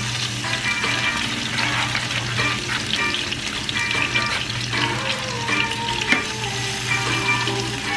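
Crab cakes sizzling steadily as they fry in hot oil in a pan, with a metal spatula scraping and tapping against the pan as the patties are set in, including one sharp tap about six seconds in.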